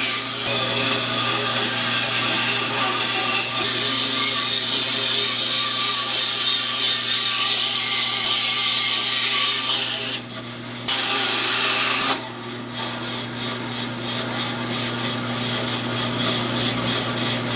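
Bandsaw running and cutting around a circle through a thick block of two glued-up 2x4s, a steady motor hum under the rasping noise of the blade in the wood. The cutting noise drops out briefly twice, about ten and twelve seconds in, while the motor hum carries on.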